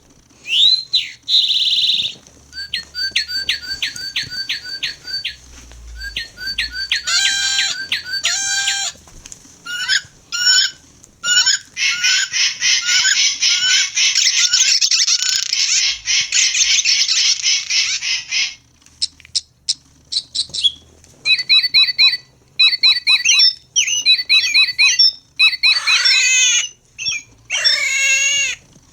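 Recorded bird calls played one after another from Wild Republic Audubon plush toy birds' sound chips: runs of quick chirps, a long dense trill in the middle, then short repeated notes and a few calls that sweep down in pitch near the end.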